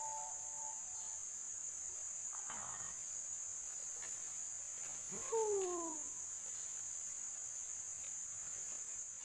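Forest insects droning steadily in a high-pitched chorus, with a short falling call about five seconds in.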